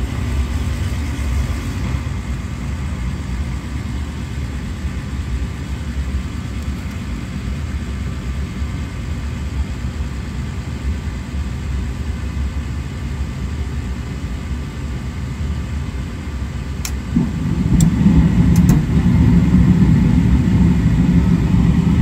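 Gas furnace running through its start-up after its limit switch has been reset, with the door safety switch held in: a steady low motor rumble that steps up louder and fuller about 17 seconds in, with a few sharp clicks around then.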